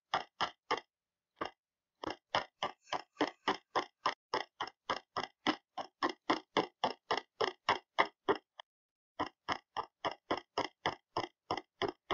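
Short clicking blips repeating about four a second, the sound of a video being stepped through frame by frame in an editor, with brief pauses near the start and about two thirds in.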